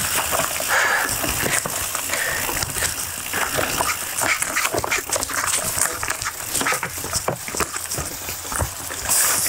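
Mountain bike being ridden over a dry leaf-covered trail: tyres crunching through leaves and over stones, with a dense, constant clatter of the bike rattling.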